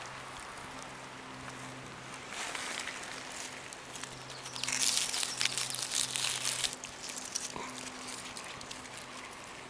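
Dry leaf litter and twigs rustling and crackling close by as a hand parts the ground cover and picks a black morel, loudest for about two seconds near the middle.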